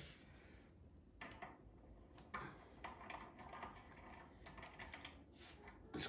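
Mostly near silence, with a few faint, scattered light clicks and knocks of hand tools and metal parts as a brake caliper bolt is worked out of a motorcycle's front disc brake.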